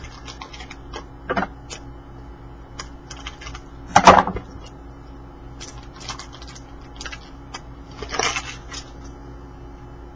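Trading cards being handled and flipped through: scattered light clicks and taps, with two louder rustling swipes about four and eight seconds in, over a faint steady low hum.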